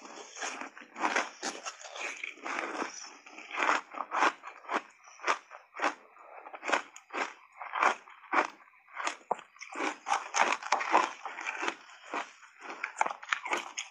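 Refrozen shaved ice coated in matcha powder being bitten and chewed close to the microphone: a quick, irregular run of loud, sharp crunches, about two a second.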